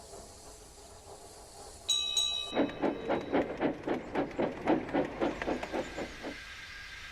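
Steam locomotive giving a short whistle toot, then chuffing away in quick, even beats, about four a second, that fade out. Faint steam hiss comes before the whistle.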